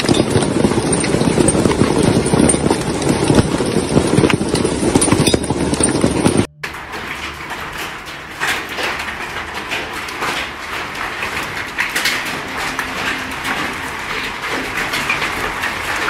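Hailstorm: hail pelting down in a dense, heavy rush. About six and a half seconds in the sound cuts suddenly to a lighter, crisper patter of many small impacts, hailstones striking brick paving and garden plants.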